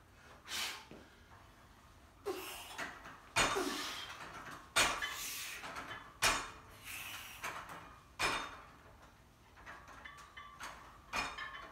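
A man doing push-ups with a loaded 160-pound Smith machine barbell across his back, breathing hard with a forceful breath or grunt on each rep, roughly every one and a half to two seconds. Light metallic clanks come from the bar and weight plates as he moves.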